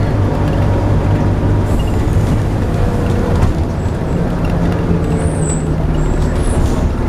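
Scania N230UD double-decker bus's five-cylinder diesel engine running under way, heard from inside on the upper deck, its engine note moving higher about four seconds in. A brief hiss comes about two seconds in, and a faint high whine near the end.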